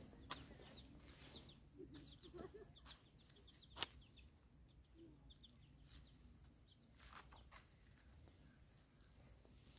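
Faint village ambience: small birds chirping and low clucking from fowl, with a few footsteps on a dirt path, one sharper step just before the four-second mark.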